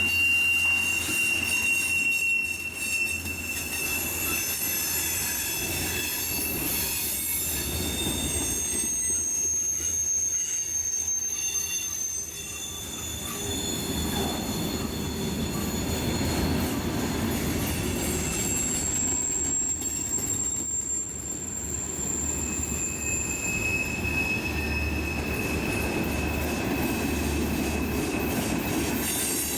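Railroad cars rolling past with their wheels squealing against the rails over a steady low rumble. The squeal is a high thin tone that changes pitch and fades in and out several times.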